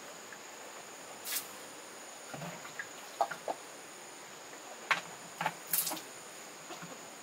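Scattered short sharp knocks and clicks, about seven in a few seconds, over a faint steady high-pitched hum.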